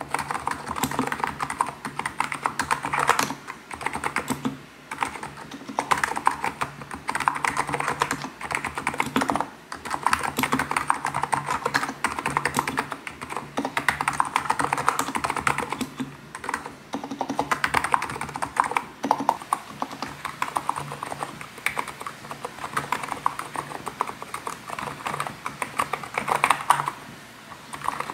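Fast, continuous typing on a Hacker KN01 electro-capacitive (Topre-style) keyboard with 45 g switches, giving the soft, bubbly keystroke sound these switches are known for. It breaks off in a few brief pauses.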